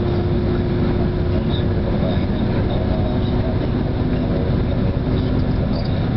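Hino RM bus's turbocharged V8 diesel running at highway speed, heard from inside the cabin: a loud, steady drone of engine, tyres and wind with a steady whine over it.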